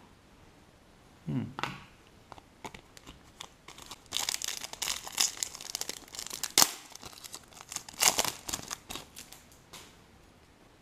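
Foil trading-card pack being torn open and its wrapper crinkled by hand: scattered crackles at first, then a dense run of sharp rips and crinkles from about four seconds in, dying away near the end.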